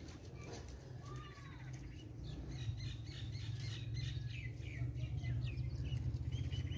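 Small birds chirping in quick repeated short calls, with a low steady drone underneath that grows louder toward the end.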